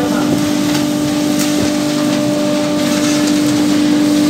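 Dust-extraction vacuum running with a steady hum as its hose sucks up loose wood chips.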